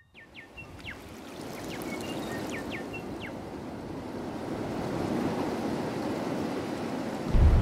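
Steady rush of water that fades in and grows slowly louder, with a few short high chirps over the first few seconds. Just before the end a much louder low rumble cuts in suddenly.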